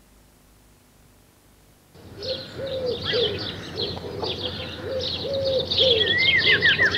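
Near silence, then about two seconds in, birdsong starts. Many small birds chirp and trill high, over a repeated low cooing call.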